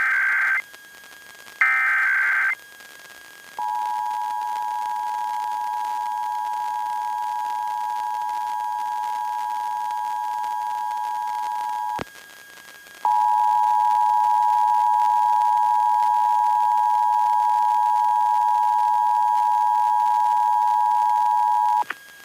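Emergency Alert System monthly test heard over an FM radio. The last two bursts of the digital SAME header buzz briefly, and then the two-tone attention signal (853 and 960 Hz) sounds steadily for about eight seconds. It cuts out with a click for about a second, then comes back louder for about nine more seconds, with a faint steady hum from the radio underneath.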